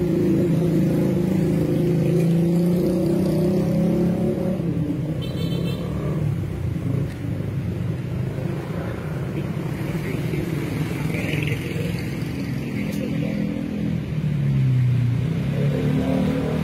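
Motor vehicle engines running in passing street traffic. A steady engine hum fills the first few seconds, and engine notes rise and fall near the end.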